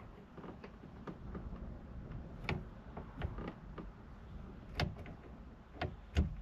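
Scattered clicks and knocks as a clamp-on steering-wheel knob is worked loose and pulled off the wheel by hand, with two louder knocks near the end.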